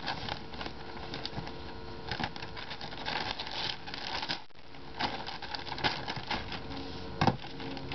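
Plastic courier satchel being slit open with a knife and pulled apart: a dense run of crinkling, rustling and small clicks from the plastic, with one sharp click near the end.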